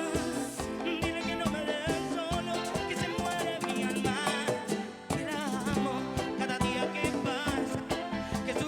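Bachata band playing live, percussion and guitar lines with a steady beat and no words sung, with a short drop about five seconds in.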